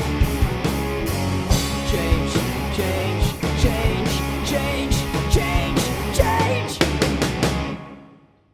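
Rock band recording: acoustic drum kit with bass and electric guitar playing a driving beat. A quick run of drum hits comes about seven seconds in, then the music fades out to silence.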